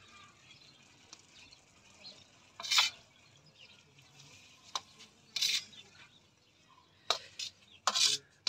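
A spatula scraping and clanking against a metal wok as fenugreek leaves are stirred and fried: about half a dozen irregular strokes, the loudest about three seconds in, over faint sizzling.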